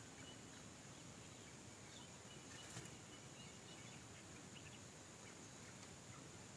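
Near silence: faint outdoor ambience with a steady high hiss and a few faint chirps a little under three seconds in.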